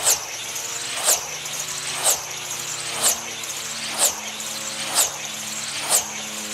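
The "VoltsWagen" electric tether car, driven by a Neu motor, circling the tether track at about 135 to 146 mph. It passes seven times, about once a second, and each pass is a sharp whine that drops in pitch. Under the passes runs a steady motor whine that climbs slowly in pitch as the car gains speed.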